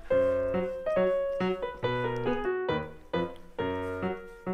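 Background music: a light, bouncy piano tune of struck notes and chords, about two or three a second.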